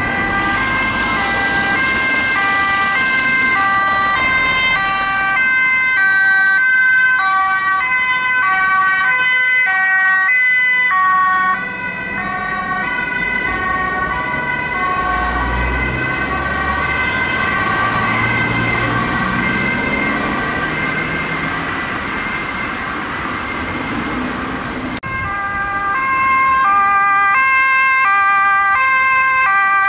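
Dutch two-tone emergency sirens alternating high and low: first a fire service officer's car responding with priority, then, after a cut about 25 s in, an A1 ambulance. A vehicle engine is heard under the siren midway through.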